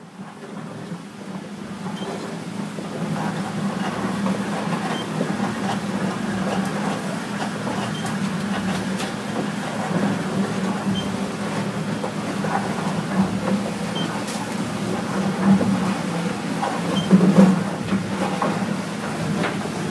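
Auger boring machine running steadily with a low hum as the cutter breaks through into the pit, with soil and clods crackling and scraping as they are pushed out. A louder crunch comes near the end.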